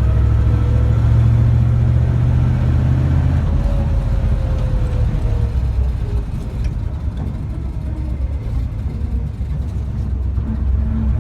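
Old car's engine running as the car is driven. The note eases off and drops in level a little past the middle, then picks up again near the end.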